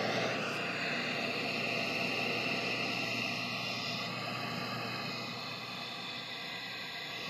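Steady hiss with a faint low hum underneath, easing off slightly toward the end.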